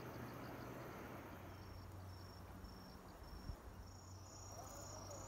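Faint insect chirping: short, evenly spaced high-pitched pulses about twice a second, joined about four seconds in by a second, higher-pitched pulsing chirp, over a faint steady low hum.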